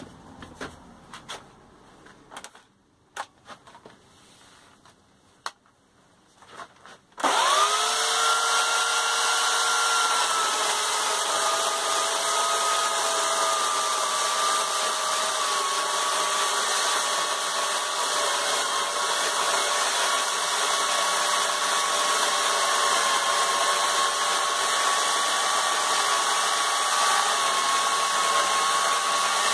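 A few scattered clicks and knocks of handling, then an electric power-tool motor switched on about seven seconds in. It runs steadily with a loud rushing hiss and a whine that settles slightly lower in pitch over the next few seconds.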